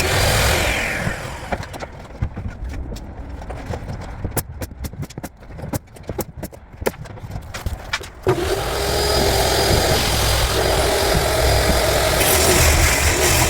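A power tool running, then winding down with a falling whine. A stretch of scattered clicks and taps follows, then the tool starts again with a jolt about eight seconds in and runs steadily.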